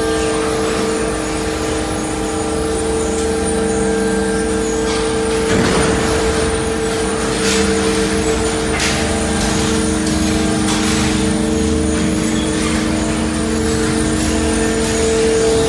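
Industrial plant machinery running steadily: a loud hum made of several steady tones over a rumble, with a few knocks and clatters partway through.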